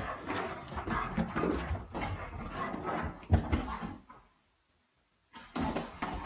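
A dog dashing around the room in play, its paws thumping and scrabbling, with small dog noises among them. The sound stops dead for about a second past the middle, then starts again.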